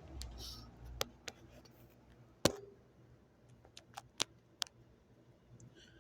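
A handful of sharp, isolated clicks and taps over a faint low rumble. The loudest comes about two and a half seconds in, and a quick group of three or four follows near the end.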